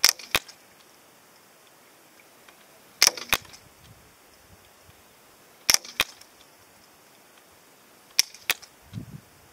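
Four shots from a Benjamin Wildfire .177 PCP semi-automatic air rifle, about three seconds apart. Each shot is a sharp crack followed by a second crack about a third of a second later.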